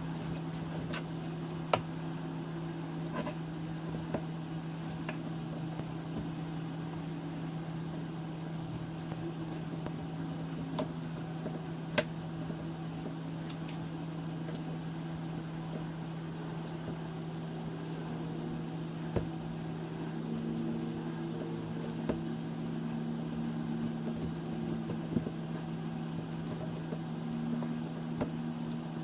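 Knife cutting raw chicken thighs off the bone on a bamboo cutting board: soft squishing and scraping of the meat, with a few sharp taps of the blade on the board. A steady low hum runs underneath.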